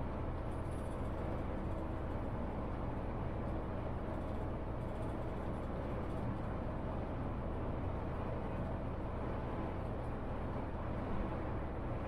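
Steady engine and road rumble inside the cabin of a Mercedes-Benz Travego coach being driven along the road.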